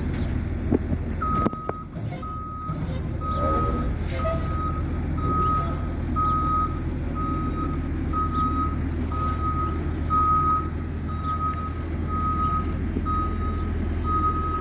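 Front-loader garbage truck's reverse alarm beeping at one steady pitch, about one beep every second, over the low running of its diesel engine; the truck is in reverse. A brief sharp sound comes just before the beeping starts.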